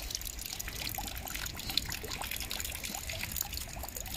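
Rainwater trickling and dripping off a roof into a full rain barrel, with many drops plopping into the water over a steady hiss of rain.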